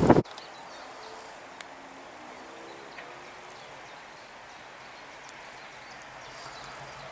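Loud train noise cuts off suddenly at the start, leaving quiet open-air ambience with a few faint bird calls. Near the end a low, distant engine hum begins to build.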